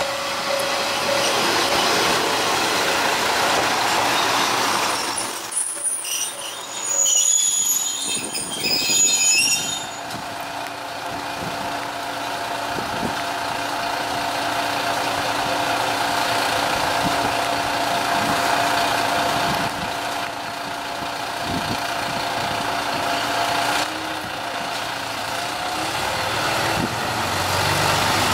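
Single-car KiHa 2400-series diesel railcar running in and braking to a stop, with high brake squeals for a few seconds. Its diesel engine then idles with a steady hum while it stands.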